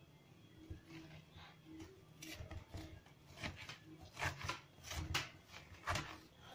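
Spoon scraping the raw flesh out of a halved calabaza squash: a run of irregular rough scraping strokes, sparse at first and quicker and louder from about two seconds in.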